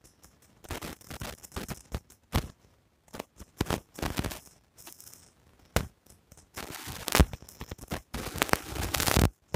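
Irregular crackling and popping clicks, thickest near the end: a badly glitching recording in which the narrator's reading is broken up into crackle.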